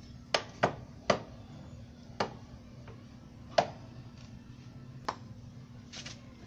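Sharp, short taps and clicks of hand tools being handled, six in the first five seconds at uneven spacing, with a weaker one near the end, over a steady low hum.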